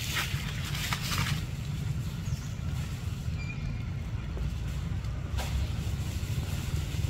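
A steady low rumble throughout, with dry leaves rustling crisply for the first second or so and one more short rustle about five seconds in.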